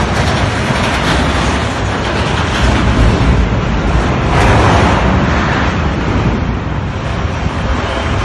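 Loud, continuous rumbling and rushing of storm wind, swelling in a few surges.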